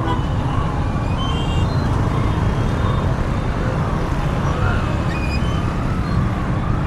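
Steady low rumble of a motorcycle ride through dense road traffic: engine and wind noise, with other motorbikes and cars running close by.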